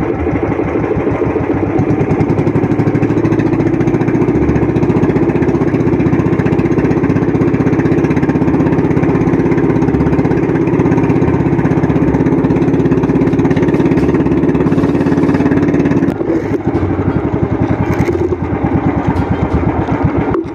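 Engine of a small motorized outrigger boat running steadily under way, its level dipping a little about sixteen seconds in.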